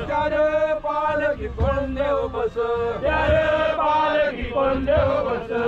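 A group of men chanting together in unison, in repeated sung phrases.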